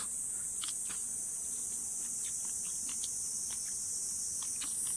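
Steady, high-pitched buzzing chorus of summer insects, with a few faint short clicks scattered through it.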